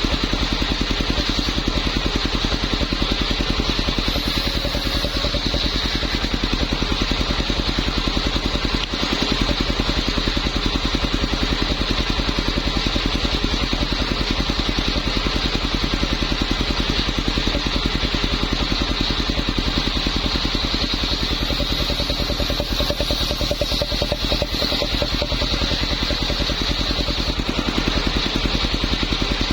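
Engine-driven homemade circular saw running steadily, with an even engine pulse and a steady high whine.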